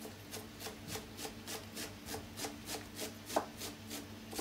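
Chef's knife chopping celery on a wooden cutting board: an even run of quick knocks, about three a second, with one harder stroke about three-quarters of the way through.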